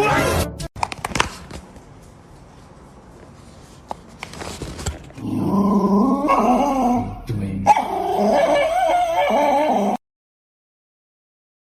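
A dog whining in two long, wavering cries, starting about five seconds in and again near eight seconds.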